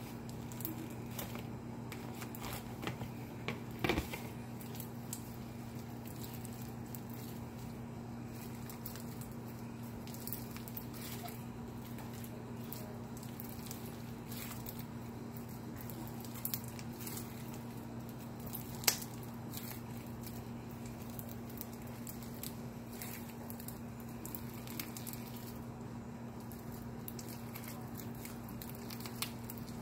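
Crunchy foam-bead slime, stiffened by days in an uncovered container, crackling and popping as hands squeeze and knead it, with a louder snap about four seconds in and another, the loudest, near the middle. A steady low hum runs underneath.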